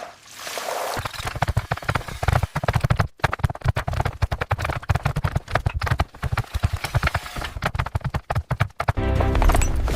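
Rapid, irregular clattering knocks, many per second, starting about a second in. Near the end they give way to music with a steady low pitch.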